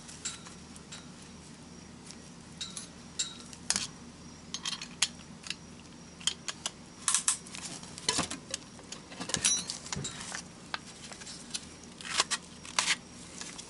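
Scattered light metallic clicks and clinks from a band-type piston ring compressor being handled and shifted around an oiled piston.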